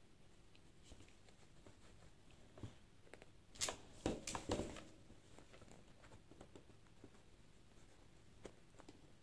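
Handling noise: a short cluster of rustles and knocks, as the embroidery fabric or the camera is moved, about three and a half seconds in, over faint room tone.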